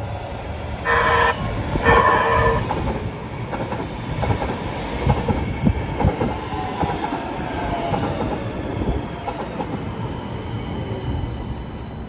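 Los Angeles Metro A Line light-rail train arriving at a station. Two short horn blasts come about a second apart. Then the wheels clatter and click over the track, with a faint whine falling in pitch as the train slows.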